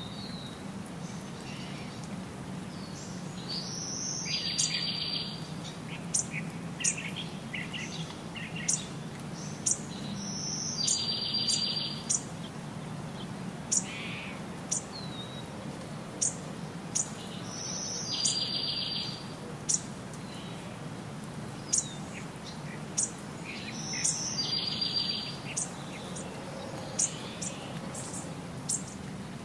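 Birds calling outdoors: a repeated high phrase about every six or seven seconds, with short sharp chirps or ticks every second or two, over a steady low hum.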